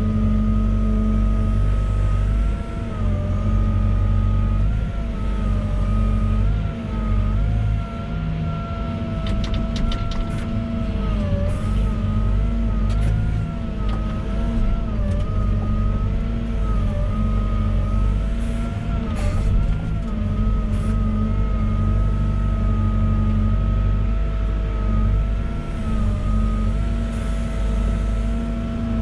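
Volvo EWR150E wheeled excavator running steadily under load: a low engine hum with a high whine that wavers up and down as it works, and a few sharp knocks and clicks around the middle.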